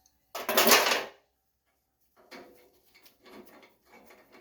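Metal tool sounds from an adjustable wrench working the top nut off a 1953 Ford steering-wheel shaft: a loud scraping clatter lasting about half a second, then after a pause a run of light, irregular clicks and taps.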